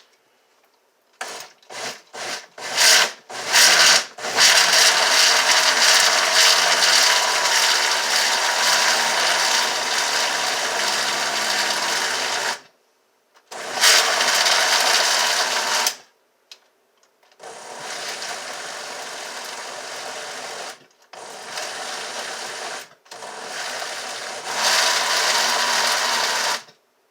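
Countertop blender motor chopping banana peels and food scraps in water. It starts with a few short pulses, runs for about eight seconds, then gives several shorter, quieter runs with stops between them. It is struggling with the thick peels, and the owner suspects its motor may have gone out.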